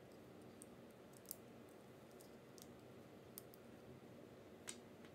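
Small plastic building bricks clicking as they are pressed and snapped together, a handful of faint sharp clicks, the loudest near the end, over a steady low hum.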